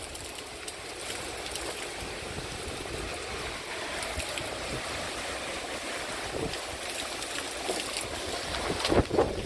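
Steady rain falling during a thunderstorm, with a couple of bumps of wind on the microphone near the end.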